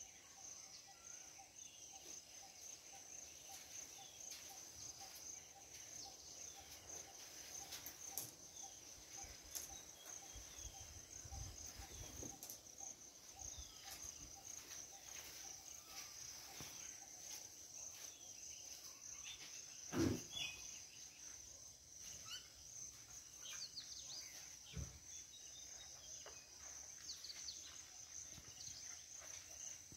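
Steady high-pitched drone of insects, with scattered short bird chirps and one sharp knock about two-thirds of the way through.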